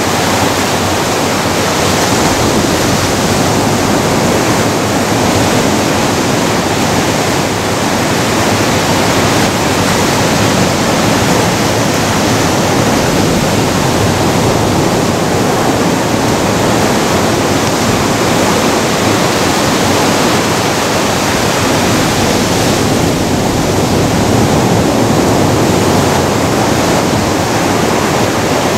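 Ocean surf breaking and washing around boulders on a sand beach: a loud, steady rush of waves.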